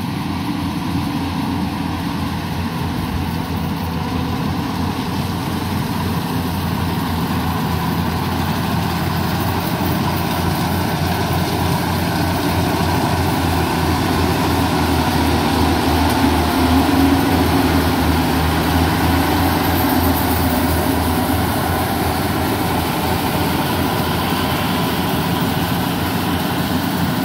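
Yanmar 850 rice combine harvester running steadily as it cuts and threshes rice, its engine and machinery giving a continuous hum. It grows a little louder about two-thirds of the way through as it comes closer.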